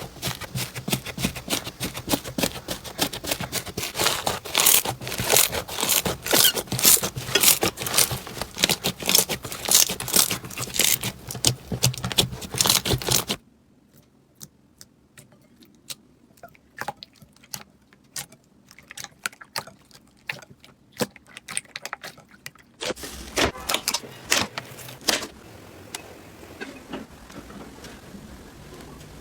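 Slime being squeezed and pressed by hand, with dense crackling and clicking. About thirteen seconds in it drops suddenly to a much quieter stretch of sparse soft clicks, then a short burst of crackling returns later on.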